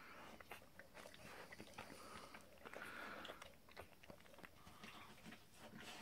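Faint wet clicks and smacking from a bull terrier's mouth as she licks and nuzzles her newborn puppies, with many small irregular clicks.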